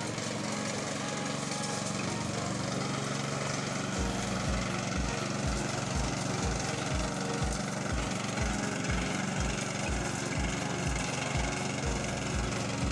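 Petrol push lawn mower engine running steadily. About four seconds in, a regular deep thump starts, about twice a second.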